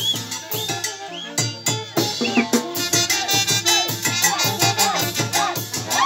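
Live Andean dance-band music with a steady quick beat, shaken-rattle percussion and a melody that slides up and down in pitch.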